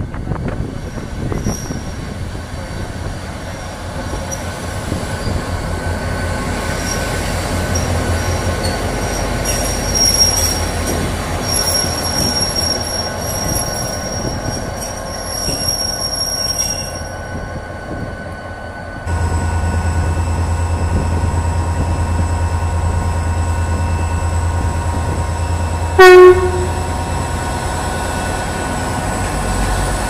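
HŽ series 2044 diesel locomotive running in with its engine rumbling and a high squeal from wheels and brakes. From about 19 s the engine idles steadily, and at about 26 s there is one short, very loud horn blast.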